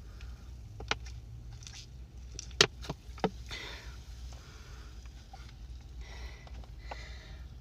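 A person breathing and sniffing quietly while trying not to burp from the fizzy Sprite, with a few sharp clicks, the loudest about two and a half seconds in, over a steady low hum.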